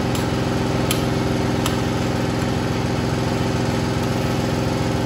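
Lamb stir-frying in a wok over a gas burner, sizzling under a steady motor hum, with a few sharp clicks of the metal spatula against the wok in the first two seconds.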